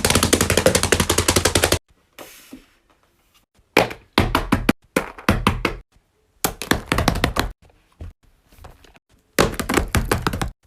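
Plastic fidget toy being clicked and tapped close up: a fast run of clicks for nearly two seconds, then four short bursts of clicks with pauses between them.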